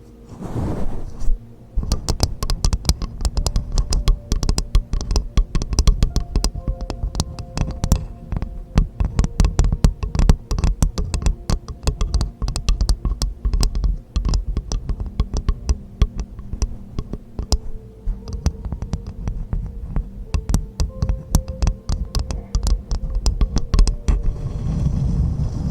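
Rapid, irregular close-up tapping or clicking, several sharp taps a second, going on for about twenty seconds; near the end it gives way to a steady hiss.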